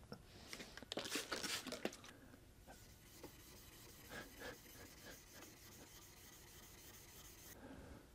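A steel plane blade being rubbed flat-side down back and forth on a wet 1000-grit water stone to flatten its back: soft, gritty scraping strokes, plainest in the first two seconds, then fainter and more spaced out.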